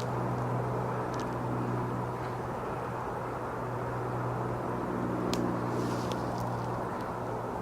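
A steady, low engine drone from an unseen motor, with a few light snaps, likely footsteps on twigs.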